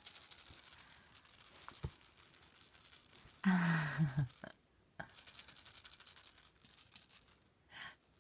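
A baby's rattle toy being shaken fast, its beads rattling in two bouts with a short pause between them, fading out near the end. About three and a half seconds in, the baby gives a short vocal sound.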